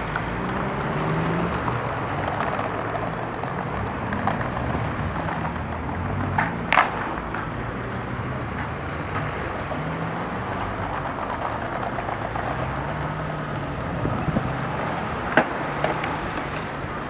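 Skateboard wheels rolling over paving stones against a steady rumble of street noise, with sharp clacks of the board on the pavement, a double one about seven seconds in and a single one near the end.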